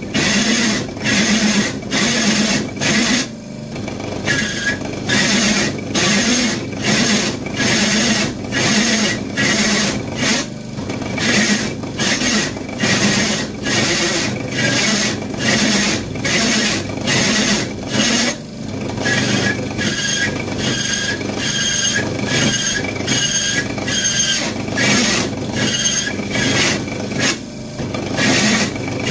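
A hole saw in a pillar drill cutting through steel box section under sprayed coolant. A high metal-on-metal squeal pulses about twice a second as the teeth bite.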